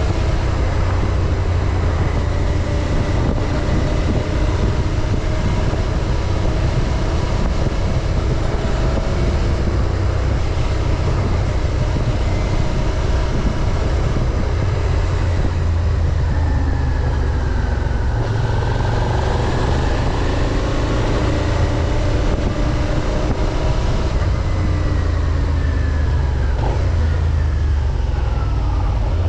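Suzuki SV650's 645 cc V-twin engine running under way on its stock exhaust, with a heavy low rumble underneath. The engine note shifts in pitch a few times past the middle of the stretch.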